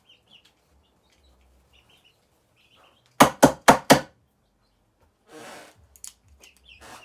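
A knife being knocked against a hard surface: four quick, sharp knocks about three seconds in, after a short quiet stretch. Faint peeping of baby chicks can be heard, and a brief rustle follows the knocks.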